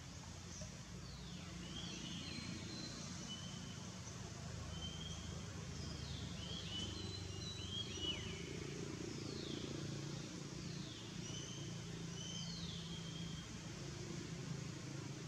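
High-pitched animal chirps: short held peeps and quick downward-sweeping squeaks, several every couple of seconds, over a low steady hum.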